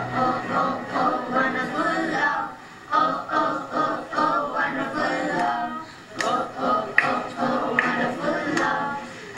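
A group of children singing together. In the second half, sharp percussive hits come about once a second.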